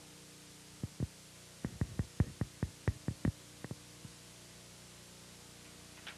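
A steady faint electrical hum, with a quick irregular run of about a dozen short dull thumps or knocks starting about a second in and stopping about four seconds in.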